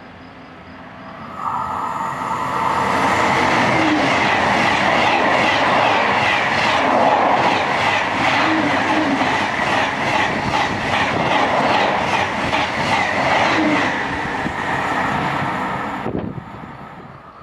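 TGV high-speed trainset passing at speed: a loud rush of noise sets in suddenly about a second in, with a rapid, even clatter of wheels over the rails. It cuts off sharply near the end as the last car goes by.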